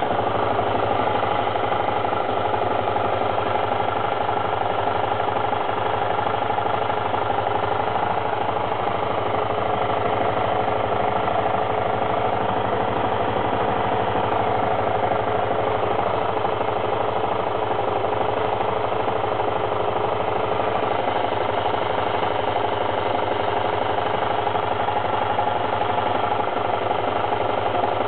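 Suzuki GSR125's single-cylinder four-stroke engine running steadily at an even speed, with no revving, making the abnormal noise (異音) the owner is recording.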